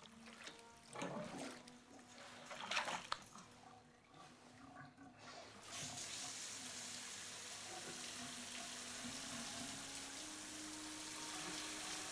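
Bathwater sloshing and splashing in a bubble bath as a man is washed, loudest about one second and three seconds in. About six seconds in, a steady hiss of running water sets in.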